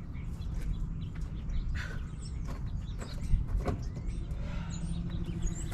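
Scattered clicks and knocks of hand tools working a stubborn oil drain plug loose under a car, over a low steady rumble, with a few faint bird chirps.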